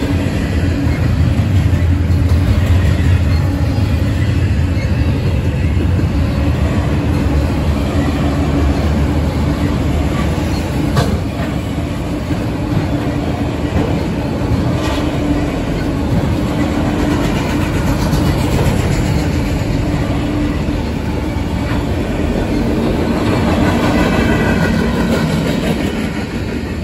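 Norfolk Southern mixed freight train passing close by: a steady rumble of steel wheels on rail with clickety-clack over the joints. The sound eases off near the end as the last cars go by.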